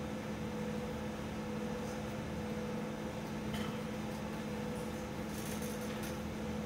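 Steady mechanical room hum, a constant low drone with a higher hum line above it, with a few faint light taps and rustles.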